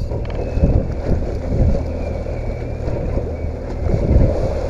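Outboard boat motor running steadily, with wind buffeting the microphone.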